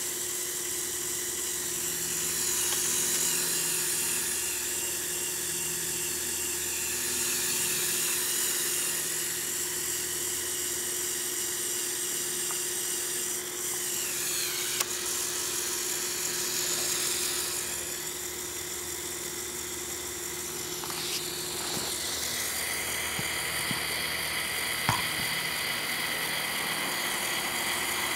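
The Lego Technic 8258 crane truck's battery-powered electric motor and plastic gear train whining steadily while it drives the crane functions. The pitch shifts about halfway through and again about three quarters of the way in, with a few small clicks.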